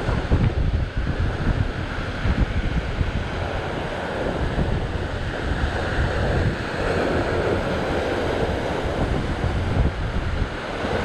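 Ocean swell surging and washing over sea rocks, one surge swelling up about two-thirds of the way through, with strong wind buffeting the microphone.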